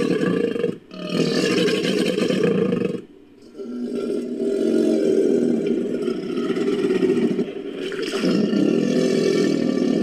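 Black caiman creature sound effect built from crocodilian recordings: a series of long, low, hoarse roars, each a few seconds long, with short breaks between them about a second in, three seconds in and near seven and a half seconds.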